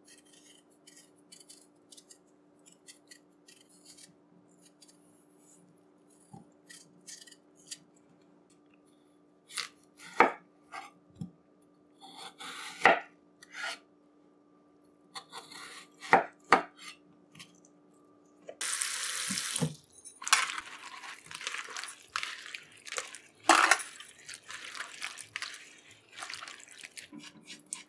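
A small kitchen knife peeling a potato with faint scraping strokes, then cutting it on a wooden board with a few sharp knocks. About two-thirds through, a tap runs briefly and hands swish cut eggplant strips in a plastic bowl of water, with splashing and light clatter.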